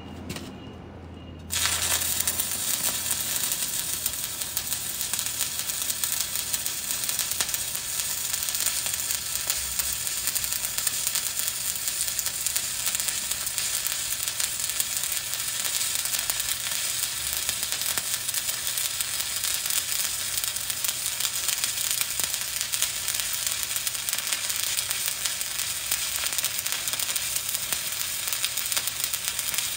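Stick welding (SMAW) with a 7018 electrode, the rod dragged uphill without weaving: the arc strikes about a second and a half in and then burns steadily.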